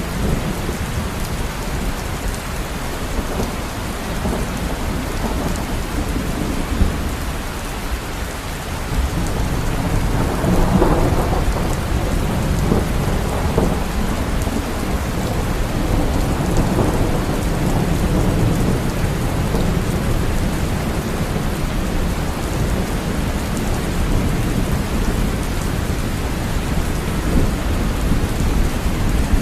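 Steady heavy rain falling, with a low rumble of thunder underneath that swells louder about ten seconds in.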